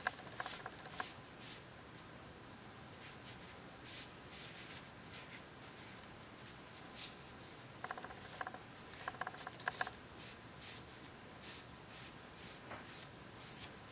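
Faint, irregular swishes of a cloth shop towel rubbing a valve and a cylinder head clean of lapping grit, with two short runs of quick light clicks a little past the middle.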